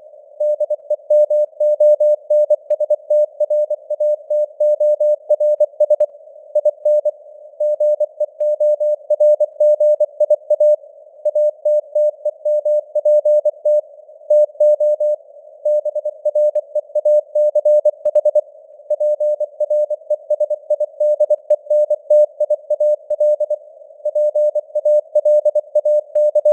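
Morse code (CW) sent at 24 words per minute: a single mid-pitched beep keyed on and off in rapid dots and dashes, with short pauses between words. It sits in a narrow band of simulated radio hiss, and its strength varies slightly, like fading (QSB) on a received signal.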